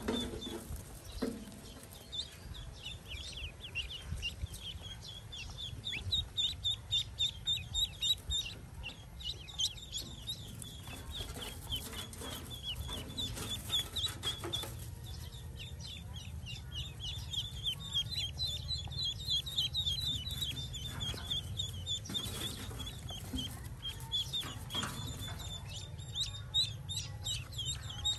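Pekin ducklings peeping continuously, a rapid run of short, high chirps several a second, loudest a few seconds in, over a steady low rumble.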